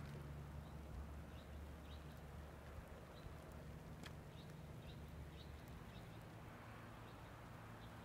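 Faint outdoor ambience picked up by a phone microphone: a low steady rumble with soft, short high ticks scattered through it and a faint click about four seconds in.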